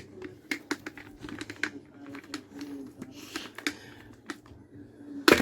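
Irregular light clicking and tapping as a dog noses and paws at a plastic treat-puzzle toy, with a sharp louder clatter near the end.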